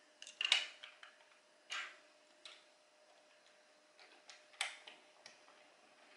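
Small plastic Playmobil parts clicking and tapping as they are handled and pressed together by hand: a handful of short, sharp clicks at irregular intervals, the loudest about half a second in.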